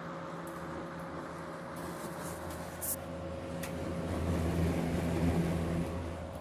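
Vintage GE WC2 mini box fan running on low: a steady rush of air over a light electric hum from its small 4-pole motor. It swells a little louder past the middle, then eases back.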